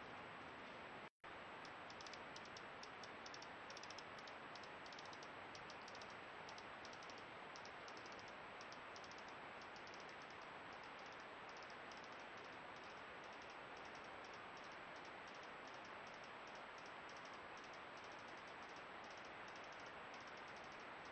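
Near silence: a trail camera's own recording hiss with rapid, faint high-pitched ticking, and a brief total dropout about a second in.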